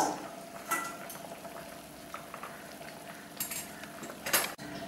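Raw mango pieces boiling in water in a pan, under a steady hum, with several sharp clinks of metal kitchenware.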